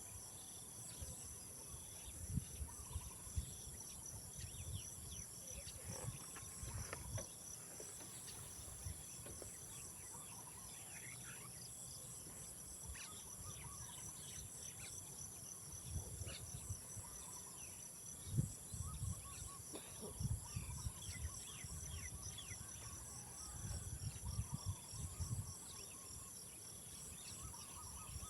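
Insects calling without a break: a steady high whine and a fast pulsing trill, like crickets or cicadas. Short bird chirps are scattered through, with irregular low thumps and rumbles.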